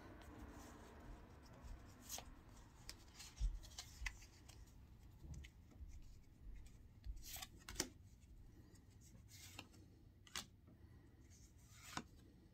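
Faint handling of a stack of Pokémon trading cards, with soft scattered ticks and brushes of card sliding on card as they are moved through one by one.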